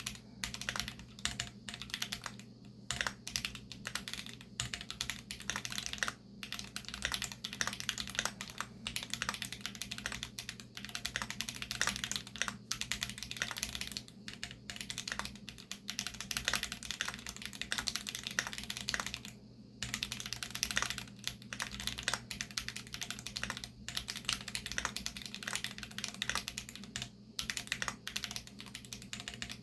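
Continuous fast typing on a Keychron Q2 mechanical keyboard with Krytox 205-lubed Holy Panda tactile switches and Glorious GPBT keycaps: a dense run of keystroke clicks, broken by a few short pauses.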